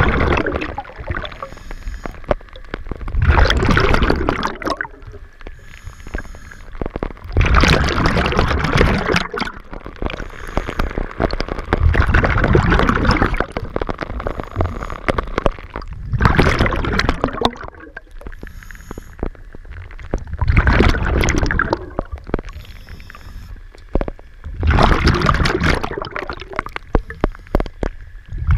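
Scuba diver breathing through a regulator, recorded underwater: a loud gurgling rush of exhaled bubbles about every four seconds, with quieter stretches between.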